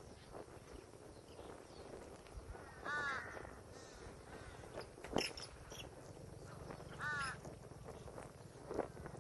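A bird gives two short, loud calls about four seconds apart, each a cluster of arched notes. Faint chirps and ticks run in between, with one sharp click about five seconds in.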